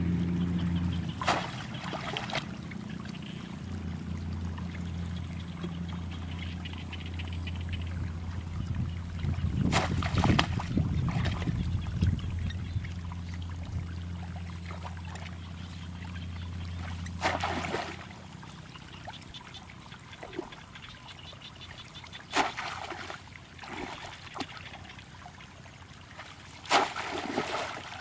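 Shallow water splashing and sloshing as a bamboo plunge basket is pushed down into it and a person wades, in separate bursts about 2, 10, 17, 22 and 27 seconds in. A steady low hum runs underneath and stops about two thirds of the way through.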